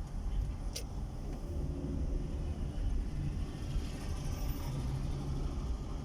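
Steady low rumble of a moving vehicle, with one sharp click just under a second in.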